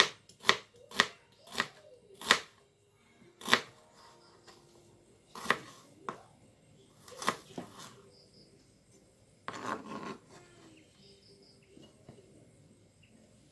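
Kitchen knife chopping through an onion onto a plastic cutting board: about ten sharp knocks at uneven intervals over the first eight seconds. A short, rougher handling noise follows about ten seconds in.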